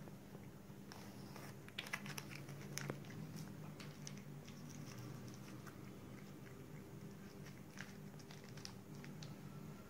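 A long-haired cat chewing a treat: faint, irregular small clicks and smacks, with a few sharper ones about two to three seconds in, over a low steady hum.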